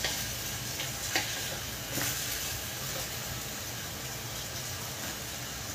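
Chicken pieces sizzling steadily as they fry briefly in oil in a clay pot, the first searing before the curry is built. A wooden spoon stirring them knocks lightly a few times in the first two seconds.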